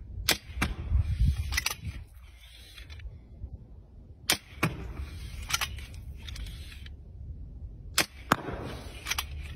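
Steel-ball compound bow being shot three times, about four seconds apart. Each shot is a sharp snap, followed by another snap a fraction of a second later and a further click about a second after.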